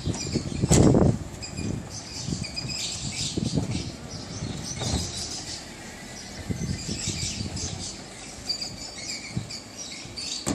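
Opel Astra Twin Top's folding hardtop mechanism moving under its one-touch control: a couple of heavy thumps about a second in, then scattered short high squeaks and creaks with a few light knocks.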